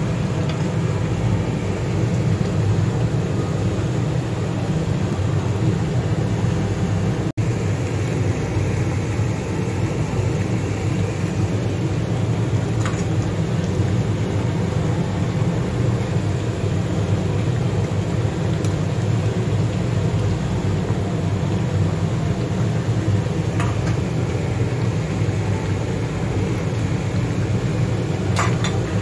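Steady low rumble from a gas stove under a large pan of braised ribs simmering, with a few faint clicks and a brief dropout about seven seconds in.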